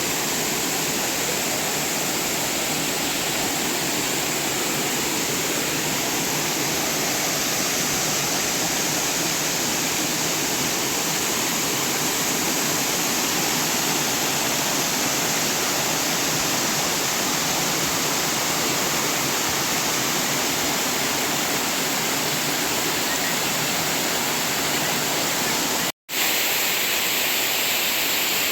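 Steady rush of a waterfall, with a split-second break near the end.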